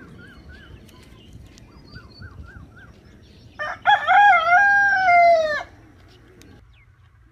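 A rooster crowing once, loud and about two seconds long: a few short opening notes, then a long held note that falls in pitch at the end. Faint small-bird chirps come in short repeated series before it.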